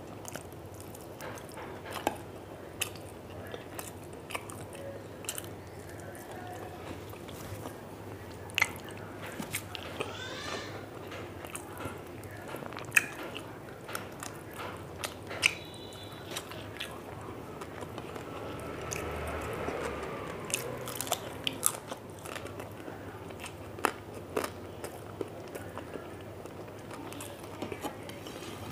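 A person eating crisp fried food: irregular sharp crunching bites and chewing, with no speech.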